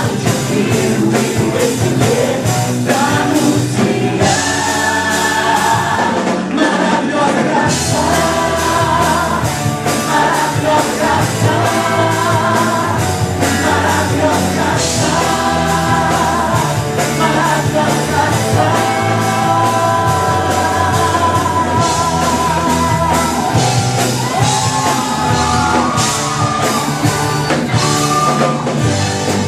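Christian rock band playing, with a sung melody held over a steady drum beat.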